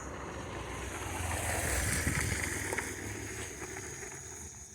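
A gust of wind rushing over the microphone, swelling for about two seconds and then fading away.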